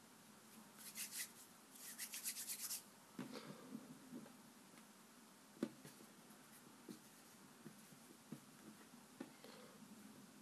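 Faint rubbing and brushing of hands in two quick scratchy bursts in the first few seconds, then a scattering of soft taps and clicks as small pieces of play dough are picked up and pressed on. The sharpest tap comes just past halfway.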